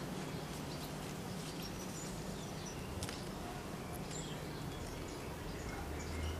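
Outdoor background noise with a steady low hum and scattered faint, brief high-pitched chirps.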